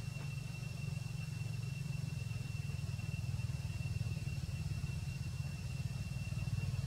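Steady low rumble of an engine running, with a thin steady high-pitched whine held over it.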